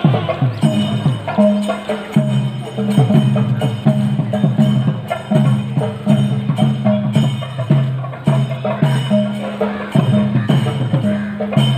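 Temple procession music: steady rhythmic percussion with clanging metal strokes over long, held low notes.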